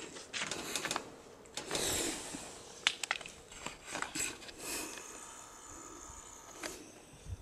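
A cat grooming: irregular small licking clicks and rustles as it licks its paw and washes its face.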